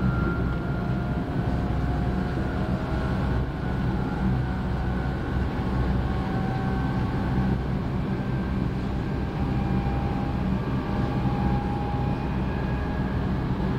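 Running noise of a JR 311 series electric train heard from inside the carriage: a steady low rumble of wheels on rail. Faint high whines come and go over it.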